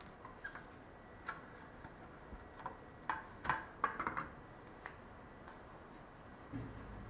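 Irregular light clicks and taps of small plastic and metal parts being handled on a stone countertop, thickest about three to four seconds in. Near the end a soft thump, then a steady low hum starts.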